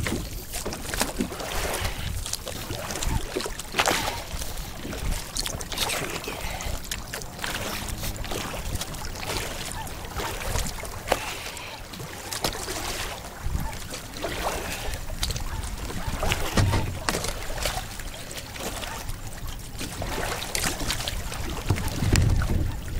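Kayak paddle strokes: a double-bladed paddle dipping and splashing into the water every second or two, with water trickling off the blades and some wind rumble on the microphone.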